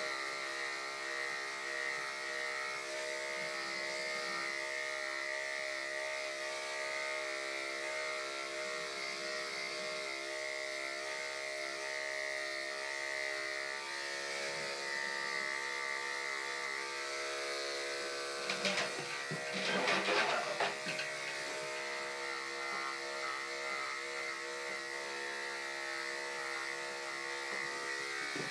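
Electric pet grooming clippers running with a steady buzz while shearing a dog's coat. About two-thirds of the way through there are a few seconds of louder knocking and clatter.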